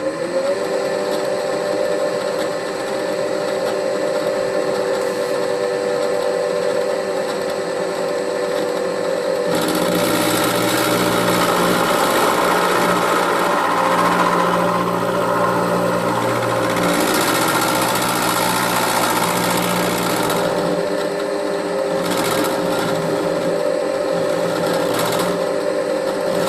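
Milling machine spindle coming up to speed and running steadily with a steady motor whine. About ten seconds in, the cutter bites into the drive shaft and a louder cutting noise rides over the motor for about ten seconds, milling a flat 28.5 thousandths deep in a single pass, then the spindle runs on alone.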